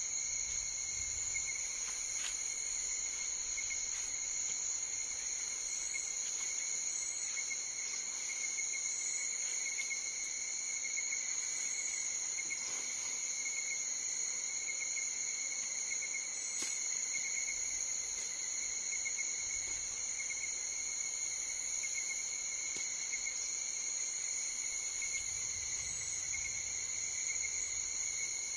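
Steady chorus of forest insects, several continuous high-pitched trills at different pitches layered together, the lowest one pulsing slightly.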